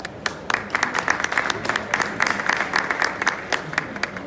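Audience applauding: many separate hand claps that build up within the first half second and stop abruptly about four seconds in.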